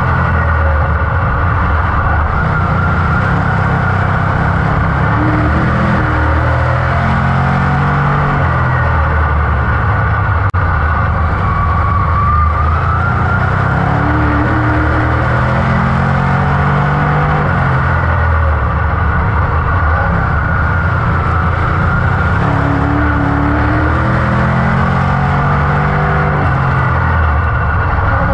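A 602 Crate Modified's GM 602 small-block V8 racing on a dirt oval, heard from inside the cockpit. The engine note rises and falls in pitch again and again, about every four to five seconds, as the throttle goes on down the straights and off into the turns.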